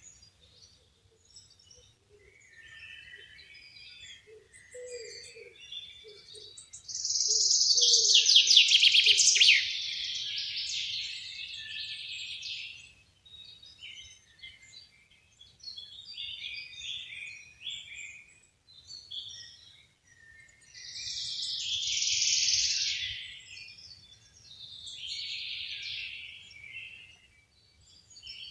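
Several wild songbirds singing in overlapping phrases. A loud, fast trill about a quarter of the way in and further loud phrases near the end stand out, and a soft, low repeated call sounds briefly near the start.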